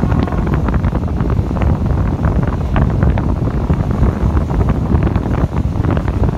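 Wind buffeting the microphone out of a moving train's window, over the low rumble of the train running, with scattered sharp clicks.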